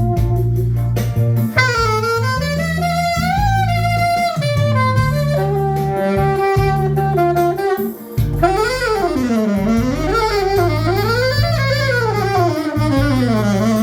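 Saxophone improvising a jazzy melodic line with smooth slides and pitch bends over a backing track of steady held bass notes. It is an impromptu test play of a freshly repaired saxophone.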